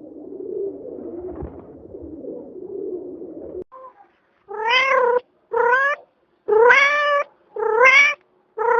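Domestic cat meowing five times in quick succession, each call short and rising in pitch, starting about halfway through. Before that there is a low wavering sound of unclear source.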